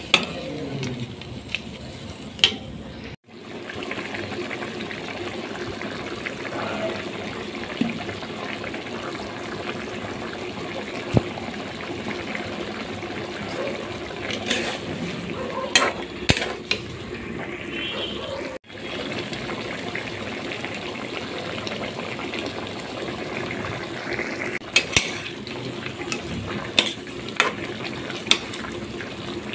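Chicken curry gravy simmering in a pan, a steady bubbling sizzle. Now and then a few sharp clicks and scrapes from a metal spatula against the pan, most of them in the middle and near the end.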